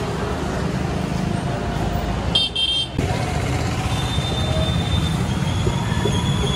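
Road traffic running steadily, with a vehicle horn sounding briefly about two and a half seconds in.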